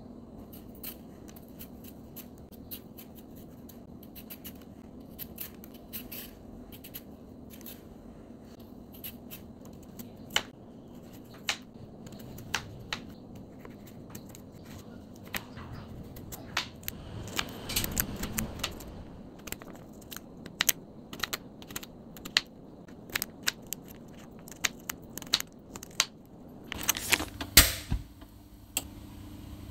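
Kitchen knife cutting a raw carrot on a plastic cutting board: scattered crisp chops and taps of the blade against the board, over a faint steady hum. A brief, louder clatter comes near the end.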